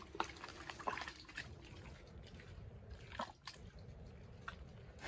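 Hands groping through wet, sloppy mud, with irregular squelches, drips and small splats.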